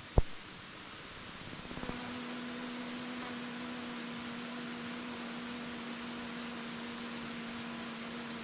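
Steady low hum over hiss on the aircraft's intercom audio, with a single sharp click just after the start.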